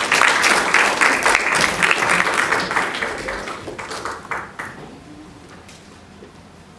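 Audience applauding, loudest at first, then thinning and dying away about five seconds in.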